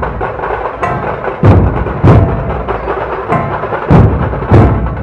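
A large dhol-tasha ensemble playing: dozens of big dhol barrel drums struck together in heavy unison booms, about two a second in bursts, over a continuous rapid rattle of tasha drums.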